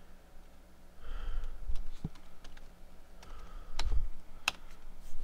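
Typing on a computer keyboard: a few irregular, scattered keystrokes with some soft thuds.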